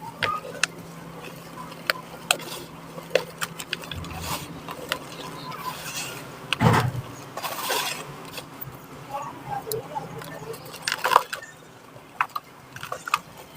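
Dry cement balls and chunks crumbling and cracking: a string of sharp little snaps and gritty crunches, with louder crushing crunches about halfway through and again near the end.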